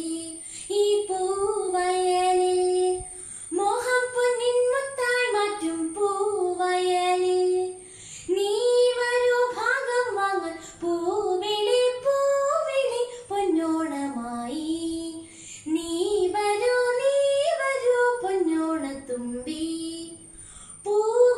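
A teenage girl singing an Onam song (Onappattu) solo and unaccompanied, in flowing melodic phrases with long held notes and short breaths between them.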